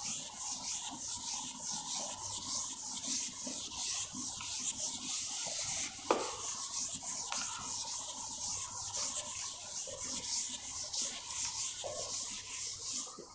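Chalkboard being wiped with a duster: a scratchy rubbing hiss in rapid back-and-forth strokes, a few a second. A single knock comes about halfway through.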